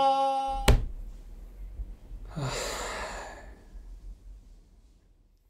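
A person sighing once, a long weary out-breath about two seconds in, after a steady tone cuts off with a click near the start.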